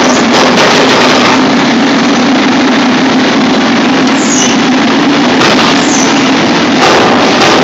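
Forge-shop machinery running: a loud, steady mechanical drone with a constant low hum.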